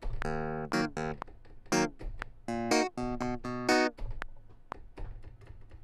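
Logic Pro X's Vintage Clav, a software clavinet modelled on the Hohner Clavinet, playing a short staccato line of bright single notes as it is recorded. The notes stop about four seconds in, leaving a few faint clicks.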